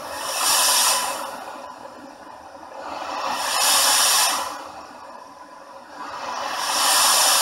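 White noise from a digital noise generator circuit board, played through a small speaker, swelling and fading three times as its volume pot is turned up and down. At each peak it turns brighter and hissier. It sounds like the sea.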